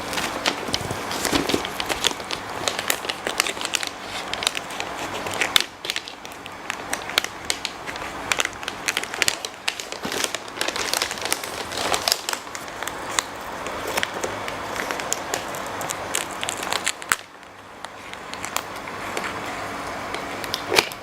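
Packaging being handled and torn open by hand: dense, irregular crinkling and crackling, with a short lull about three quarters of the way through.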